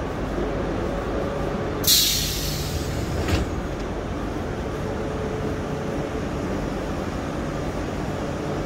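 City street traffic with a steady low rumble and hum. About two seconds in comes a sudden loud hiss that fades over about a second, and a single sharp knock follows a moment later.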